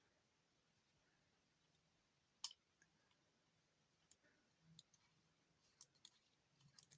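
Near silence broken by a few faint, scattered clicks and light taps, with one sharper click about two and a half seconds in.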